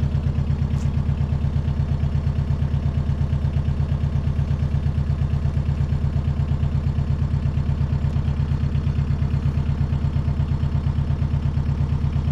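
Engine of a soil-sampling machine running steadily, with a fast, even throb.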